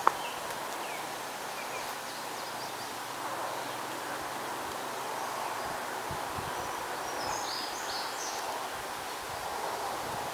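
Woodland ambience: a steady even hiss with a few short bird chirps, most of them about seven to eight seconds in. A sharp click comes right at the start, and a few soft low thumps come about six seconds in.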